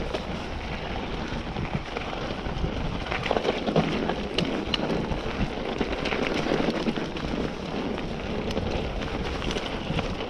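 Mountain bike rolling down a rough trail: a steady rush of tyre and ground noise, broken by many small clicks and rattles from the bike over bumps.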